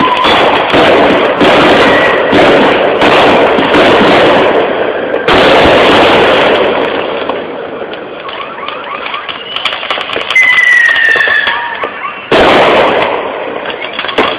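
Fireworks going off in a dense barrage of crackling and bangs, with sudden heavy blasts about five seconds in and again near the end. The barrage thins out in between, where a short falling whistle is heard.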